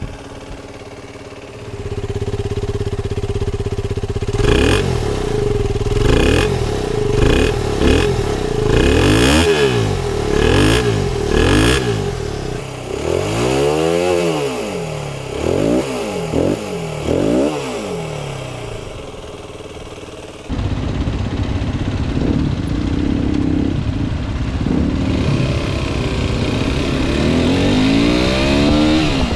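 Aprilia RX 125's single-cylinder four-stroke engine through its stock exhaust, idling, then blipped in a quick string of short revs followed by several longer revs rising and falling. About twenty seconds in it switches to the bike being ridden, the engine pulling up through the revs near the end.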